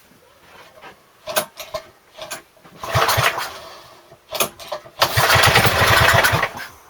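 Rebuilt Briggs & Stratton engine being pull-started: a few clicks, then a cranking pull about three seconds in. About five seconds in it fires and runs for about a second and a half on fuel primed into the spark plug hole, then cuts out.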